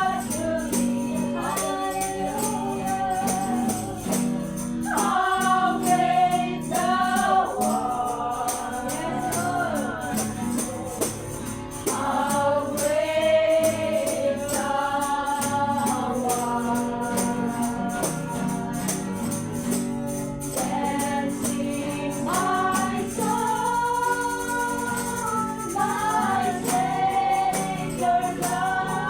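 Worship singing: a group of voices sings a hymn over instrumental accompaniment with a steady percussion beat.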